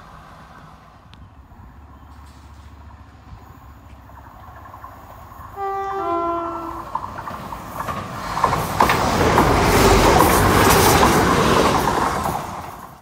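Class 175 diesel multiple unit sounds its two-tone horn, a high note then a lower one, for about a second and a half. It then runs past close by, a rising rush of wheels on rail and engine noise that is loudest near the end and cuts off suddenly.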